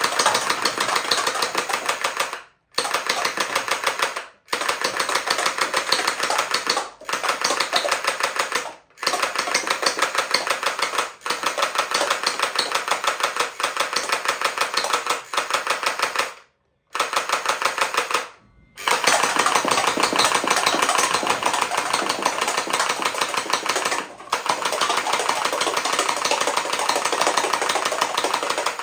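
Toy gel blaster shield firing gel balls on full auto in long bursts: a fast, steady mechanical rattle of its battery motor and gearbox cycling. It breaks off briefly between bursts every few seconds.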